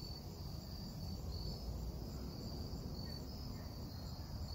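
Crickets chirping: a steady run of high, evenly repeated chirps over a low background rumble.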